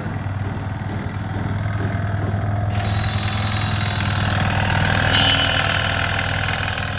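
Yamaha R15's single-cylinder engine running steadily with the abnormal engine noise that its mechanic warns should not be ignored. It gets somewhat louder and noisier about halfway through, then eases.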